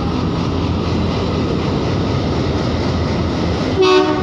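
Diesel locomotive of a passenger train pulling in alongside the platform, running steadily, with one short horn toot near the end.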